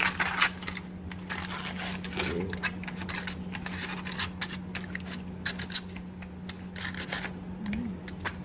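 Aluminium foil crinkling and rustling in irregular bursts as a foil packet of steamed fish is opened, over a steady low hum.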